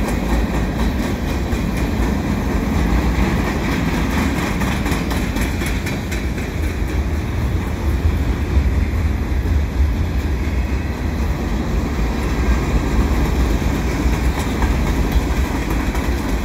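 Freight cars of a Canadian Pacific freight train rolling past close by, their steel wheels rumbling steadily on the rails with a clacking over the rail joints.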